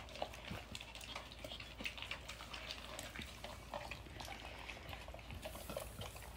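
Two basset hounds eating from ceramic bowls: a faint, steady run of wet licking and chewing clicks as their muzzles work the food.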